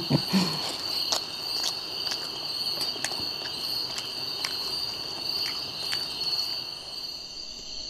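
Steady high-pitched insect chirring, with a few faint scattered clicks from someone eating roti by hand off a steel plate.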